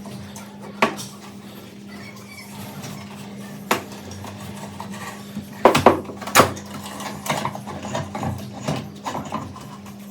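Metal parts clinking and knocking as they are handled: single sharp knocks about one and four seconds in, a loud cluster of clanks around six seconds, then a run of lighter clicks. A steady low hum sits underneath.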